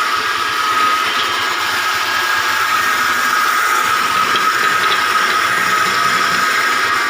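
Broom-handle sanding machine running steadily, with a constant high whine over a hiss of abrasive on wood.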